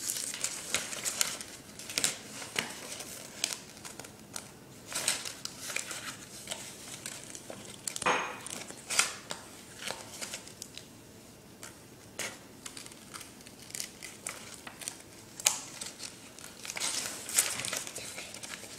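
Craft pieces being handled: small mosaic pieces picked up and pressed onto a cut-out butterfly, making rustling with irregular light clicks and taps.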